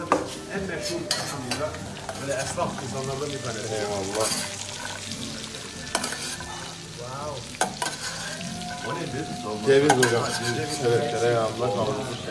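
Meat frying and sizzling in hot metal pans, with scattered clicks and scrapes of metal utensils, as liquid is poured over it from a metal pot.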